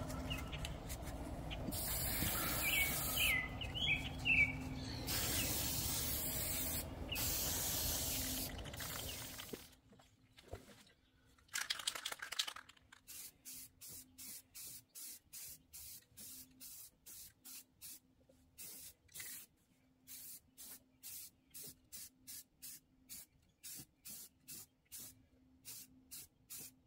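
Aerosol can of rust neutralizer spraying onto bare rusty sheet metal: several long hisses in the first nine seconds, then a run of short quick bursts, about two a second.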